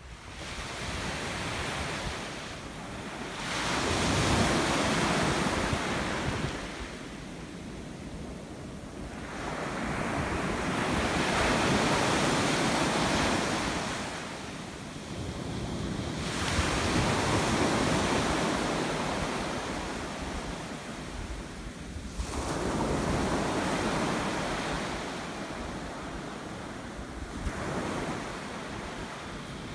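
Sea waves washing onto the shore in slow surges, one every four to six seconds, each rising to a rush and then drawing back.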